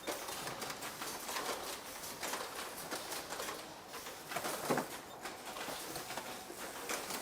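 Factory-floor background: a steady hum of activity with scattered light clicks and faint voices in the distance.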